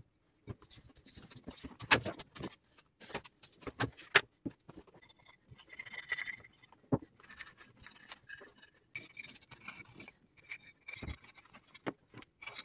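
Small cast-cement model Jersey barriers being handled, freed from foam molds and set down on a cutting mat: a string of light knocks and taps, with stretches of rubbing and scraping.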